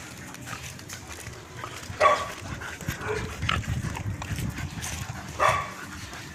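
A chow chow gives two short, gruff barks, one about two seconds in and another about three and a half seconds later.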